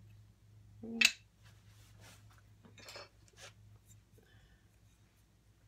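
Glazed ceramic tiles clinking and scraping as one is picked up and handled, with a sharp clink about a second in and softer scrapes a couple of seconds later, over a low steady hum.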